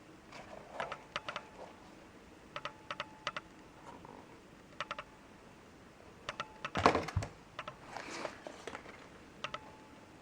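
Small plastic and metal clicks in quick clusters of three or four from handling a Mavic Fury mountain bike shoe and its buckles, with a louder thump and rustle about seven seconds in.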